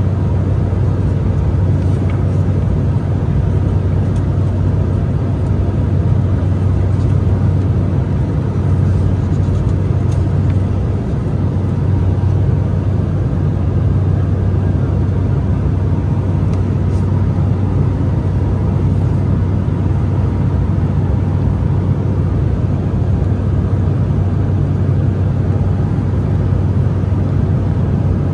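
Steady cabin noise of an Embraer E190 airliner in cruise, heard from an economy seat: an even drone of its two General Electric CF34-10E turbofan engines and the airflow, strongest in a low hum.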